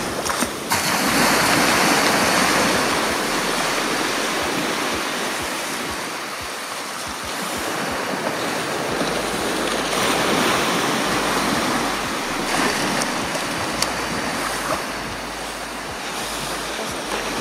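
Small waves breaking and washing up onto a sandy beach, the surf swelling and ebbing every few seconds.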